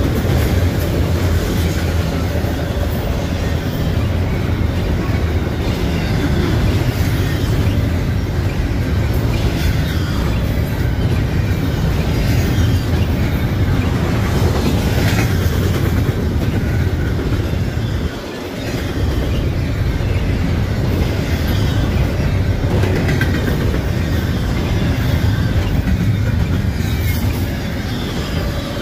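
BNSF freight cars rolling past close by, first autorack cars, then double-stack intermodal well cars: a loud, steady rumble of steel wheels on rail. There is a brief dip in the noise about two-thirds of the way through.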